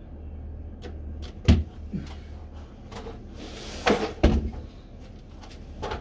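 A series of sharp knocks and clunks of tools and metal door-closer hardware being handled at a door. The loudest come about a second and a half in and as a pair about four seconds in, over a steady low hum.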